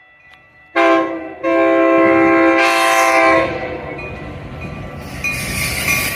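Metra commuter train horn sounding: a short blast about a second in, then a longer blast of about two seconds. The running noise of the approaching train follows.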